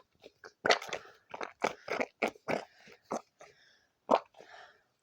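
Irregular crunching and crackling clicks from fidget toys being squeezed and handled, the strongest about a second in and again near the end.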